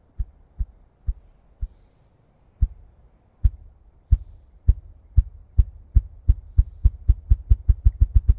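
Male ruffed grouse drumming, beating its wings in a display. Low, deep thumps come about half a second apart at first, then quicken steadily into a fast roll near the end.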